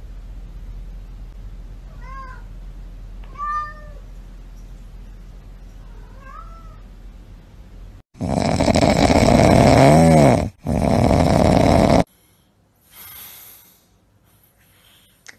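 A cat meowing three times, short calls that rise and fall in pitch like a questioning "hello?". About eight seconds in, a sudden loud, harsh rasping noise takes over for about four seconds, broken briefly just after ten seconds, then drops away to something much quieter.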